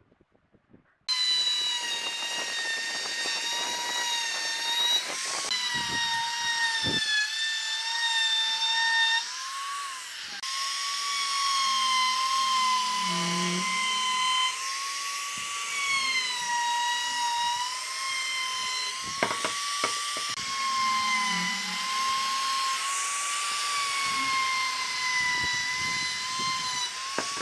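Compact trim router starts up about a second in and runs with a steady high whine, routing a round-over along the edge of a wooden block. The pitch wavers slightly as the bit cuts.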